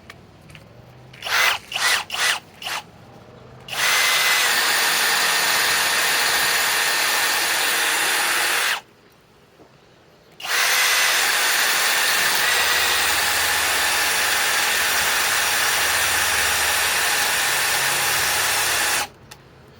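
Master Force brushless boost hammer drill/driver running on speed 1: four quick trigger blips, then two long, steady runs with a short stop between them.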